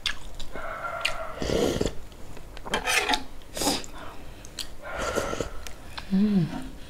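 Close-miked slurping of spicy ramen broth from a metal spoon and chewing noodles, in a series of short noisy bursts. A short pitched sound that rises and falls comes near the end.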